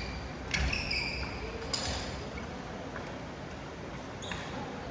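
Badminton racket strings hitting the shuttlecock in a sports hall: three sharp hits, the first two with a brief ringing ping.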